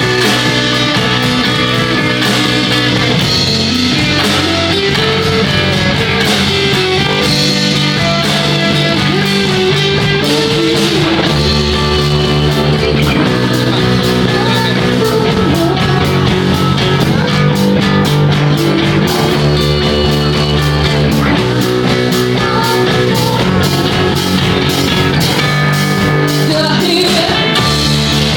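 Live rock band playing: electric guitar, bass and drums with a steady beat, and a sung melody over them.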